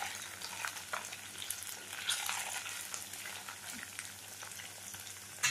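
Small tangra fish sizzling and crackling as they are lightly fried in hot oil in a metal kadai, with a flat spatula scraping and turning them in the pan.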